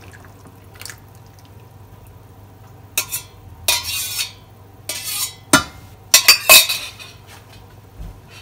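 A spoon scraping and knocking against the inside of a metal pot in a string of short clatters, as blood is scraped out of it into a pan. The clatters begin about three seconds in and are loudest in a quick cluster past the halfway point, over a low steady hum.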